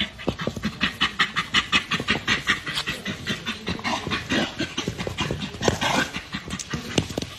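A dog panting fast and evenly, about five breaths a second.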